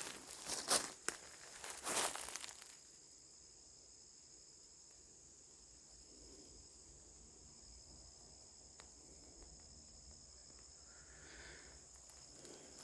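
Footsteps crunching through dry leaves and brush, stopping about three seconds in, over a steady high-pitched insect drone that carries on alone after.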